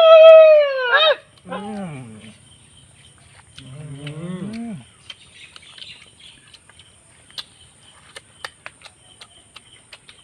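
Animal calls: a loud, high call arching up and down over the first second, then two lower, shorter calls a couple of seconds apart, followed by scattered light clicks.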